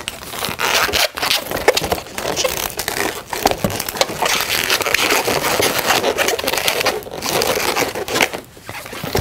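Latex twisting balloons squeaking and rubbing against each other as they are twisted and worked by hand, a continuous scratchy, crinkly scraping with many small squeaks.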